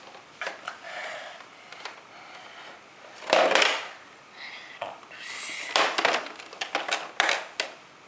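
Plastic toy guitar being handled and knocked about: a loud scraping rush about three seconds in, then a run of sharp clicks and knocks.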